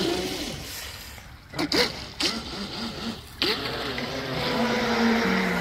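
Electric brushless motor of a Pro Boat Sonic Wake RC speedboat whining. The whine fades, there are short throttle blips and a couple of sharp knocks, and it builds again in the second half as the boat runs along the shore.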